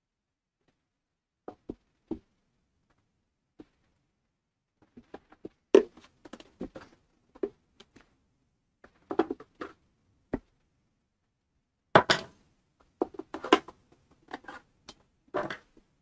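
Scattered clicks and knocks of a pancake air compressor's plastic shroud and hand tools being handled during disassembly, sparse at first and more frequent from about five seconds in.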